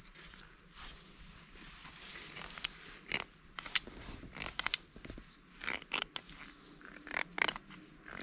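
Irregular scraping and clicking of a finger and thumbnail working along the inside of a gutted cutthroat trout, scraping the bloodline off the backbone.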